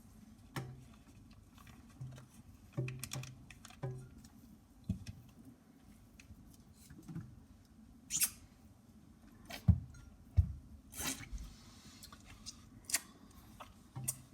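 Scattered light knocks and clicks of kitchen items being handled and set down on a counter, a dozen or so separate taps spread irregularly, with a few sharper knocks in the second half.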